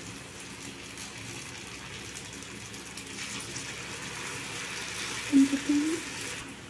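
Spring rolls deep-frying in hot oil in a shallow pan: a steady sizzling hiss of bubbling oil. There is a short pitched sound about five seconds in.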